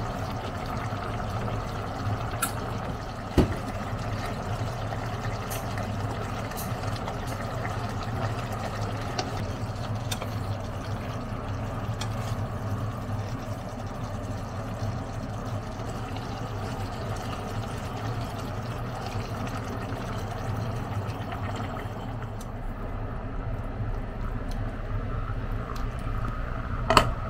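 Pork, onion and kimchi cooking in a stainless steel pot with a steady sizzling, bubbling sound. A few light taps from a utensil stirring the pot come in the first half, and a sharp knock near the end.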